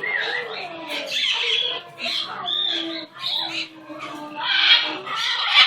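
A pet bird moaning softly in a string of short calls that bend up and down in pitch, with breathy hissing near the end; the owner takes the moaning for a sign of pleasure.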